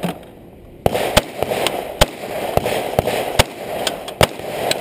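Rapid gunfire: about ten sharp shots, irregularly spaced a few tenths of a second apart, starting about a second in, as a competitor engages targets on a 3-gun stage.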